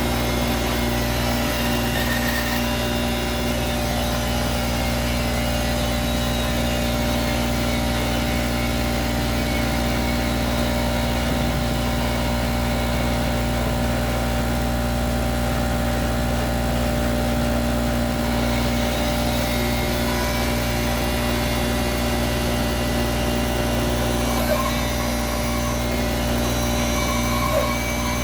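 Bandsaw motor running steadily with an even mechanical hum.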